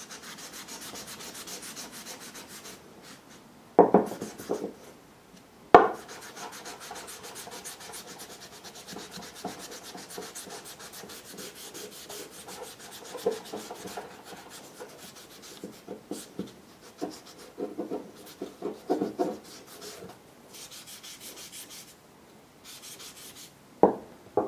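A wooden knife handle being hand-sanded, rubbed back and forth in quick strokes. Sharp knocks sound about four and six seconds in and again near the end.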